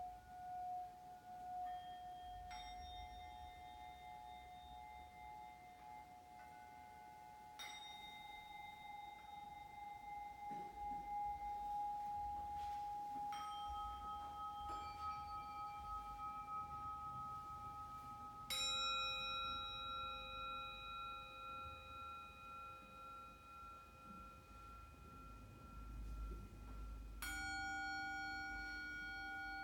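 Small metal singing bowls struck one after another, about seven strikes a few seconds apart, each ringing on with long, steady tones that overlap and slowly fade.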